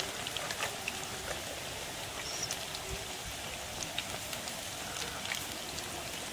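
Battered spinach pakoras deep-frying in hot oil in a pan, a steady sizzle with many small pops and crackles as more pieces of battered spinach are dropped in.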